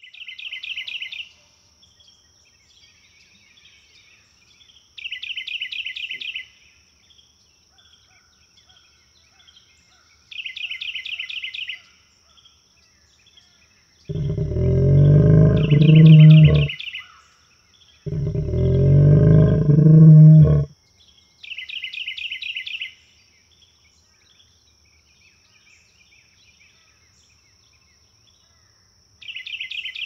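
Two long, deep roars of a dinosaur sound effect, the first about three seconds and the second about two and a half, each swelling as it goes, in the middle of the stretch. Around them runs a nature backing track: a short high bird trill repeating about every five seconds over a steady high-pitched whine.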